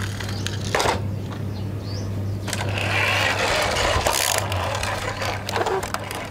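Large plastic toy dump truck pushed along a cloth-covered surface, its wheels and gearing giving a rough grinding whirr for about two seconds, after a sharp knock about a second in as a toy car is handled. A steady low hum runs under it.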